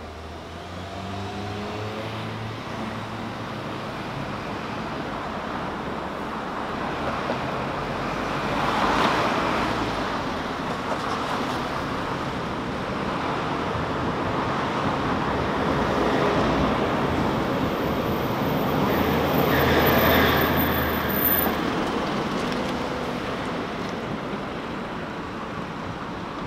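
City road traffic: cars passing through an intersection over steady road noise, with an engine rising in pitch as a vehicle pulls away near the start, and the loudest passes about nine and twenty seconds in.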